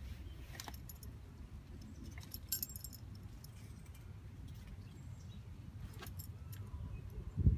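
Metal ID tags on a dog's collar jingling in a few short bursts as the dog moves and snaps at bugs, the busiest about two and a half seconds in. A steady low rumble lies underneath, with a louder low thump near the end.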